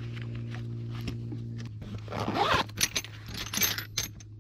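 A steady low hum, then from about a second and a half in a run of short rasping scrapes and sharp clicks.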